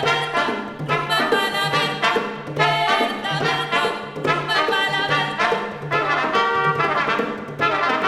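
Brass ensemble playing an instrumental passage: pitched horn lines over a bass line of evenly spaced low notes.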